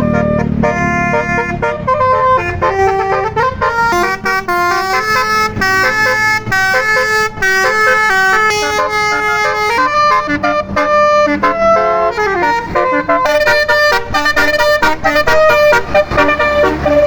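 Basuri telolet bus horn, a multi-trumpet melody air horn, playing a fast tune of short notes that step up and down, with a low rumble under the first second or two.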